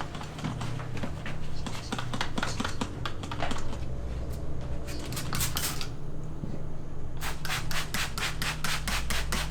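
Repeated rubbing or scrubbing strokes on a surface, uneven at first, then settling into a quick even back-and-forth of about five strokes a second near the end.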